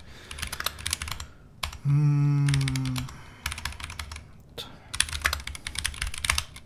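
Typing on a computer keyboard: quick runs of key clicks with short pauses. About two seconds in, a man's voice hums a low 'mm' for about a second, the loudest sound here.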